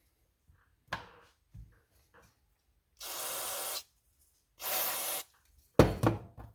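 Two short hissing bursts of pressurized spray, each under a second, about two seconds apart, cleaning small carburetor parts; a few light clicks of handling before, and a knock near the end.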